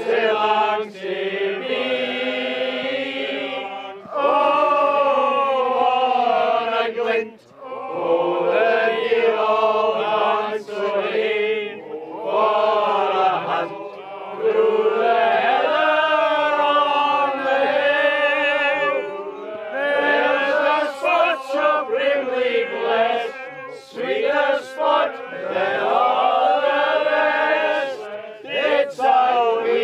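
Men singing a Scots song together, in long held notes with short breaths between the lines.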